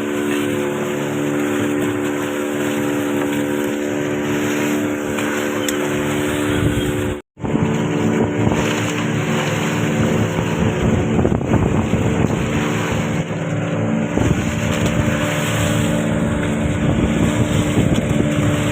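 A fishing boat's motor running steadily at sea, with wind and water noise; the sound drops out for an instant about seven seconds in, then carries on with more low rumble.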